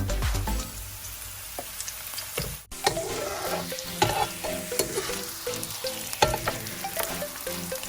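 Chopped onion and garlic sizzling in hot oil in a wok while they are stirred, with frequent sharp clicks and scrapes of the stirring utensil against the pan.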